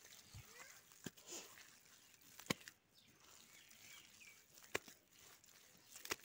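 A hand working wet soil and cow dung with water into a mud-and-dung floor mixture, quiet squelching with four sharp wet slaps about a second and a half apart.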